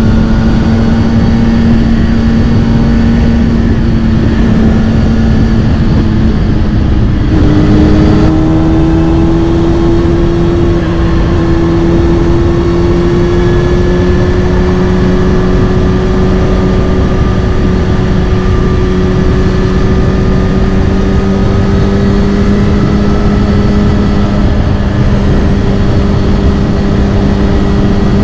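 Kawasaki Ninja ZX-6R's inline-four engine through a Scorpion titanium exhaust, running steadily on the move. About seven seconds in the engine note shifts abruptly, then climbs slowly as the bike gathers speed.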